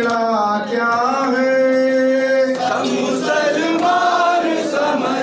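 Male voices chanting a noha, an Urdu mourning lament: a long held sung line, then shorter sung phrases from about halfway through.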